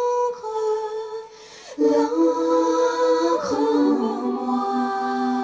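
Acoustic music with a female voice singing or humming long held notes in a slow melody. The sound thins out a little after a second in, then comes back louder just before two seconds.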